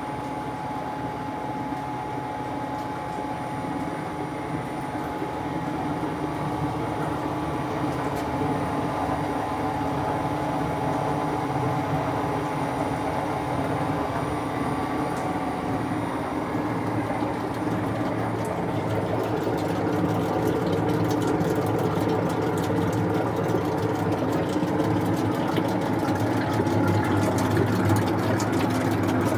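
Rebuilt Mazzoni DTM 300 soap plodder running on test: its new electric motor driving through V-belts into the reduction gears, a steady mechanical hum with gear whir. It grows gradually louder, and a faint rapid ticking joins in over the second half.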